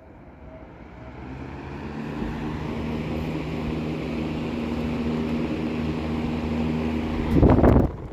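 Vintage 14-inch Capri PC-14 box fan running: its motor hums and the blades rush air as it spins up to speed over the first two seconds or so, then runs steadily. Near the end there is a brief, louder rush of air or buffeting.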